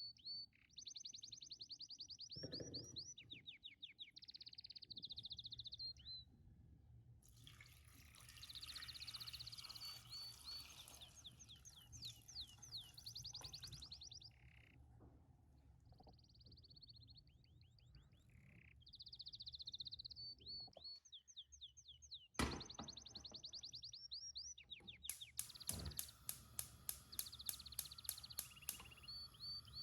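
Birds chirping in repeated quick trills, with a hiss in the middle and a fast run of clicks near the end.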